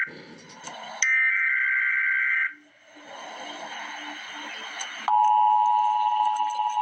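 Emergency Alert System broadcast tones: a harsh one-and-a-half-second burst of the digital SAME header data, then a few seconds of radio hiss. About five seconds in, the loud steady two-tone EAS attention signal starts.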